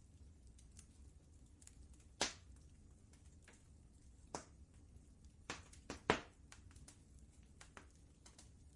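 Wood fire crackling in a fireplace: scattered sharp pops and snaps over a low steady rumble, with the loudest pops about two seconds in and about six seconds in.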